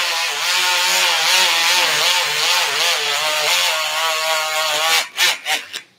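Powered surgical bone saw with a curved radial blade cutting through a dog's tibia for a CBLO osteotomy. It gives a buzzing whine whose pitch wavers as the blade loads in the bone. Near the end it runs in a few short bursts and then stops.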